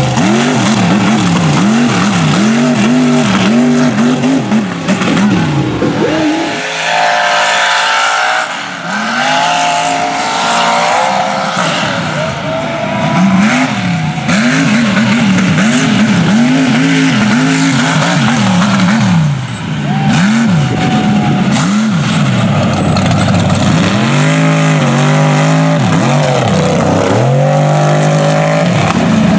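Mega truck engines at full throttle, revving up and down in quick swings, one swing after another.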